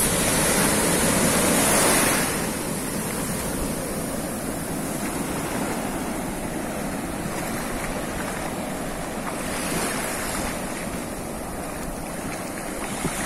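Ocean surf breaking and washing around a wader in the shallows, louder for the first couple of seconds and then a steadier wash.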